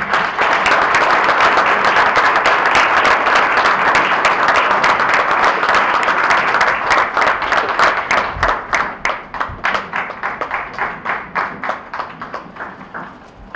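Audience applauding: a dense round of clapping that thins into scattered individual claps and fades out near the end.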